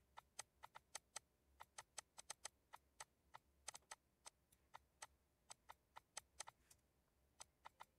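Faint computer mouse clicks at irregular intervals, about thirty in all, some in quick pairs, over a faint low hum.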